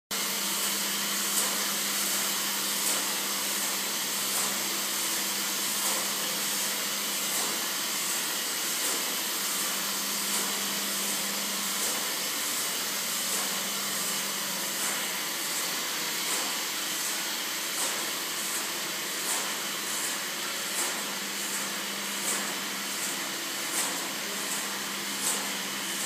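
Rebuilt Colossus codebreaking computer running: a steady airy whir with a faint hum. A sharp tick repeats about every second and a half, coming about twice as fast in the second half.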